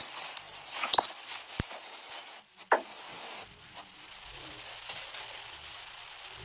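Live video-call audio breaking up: the voice is cut into garbled, crackling fragments and clicks for the first three seconds, then drops to a steady hiss with no intelligible speech. This is the connection failing, which the speaker calls "breaking up".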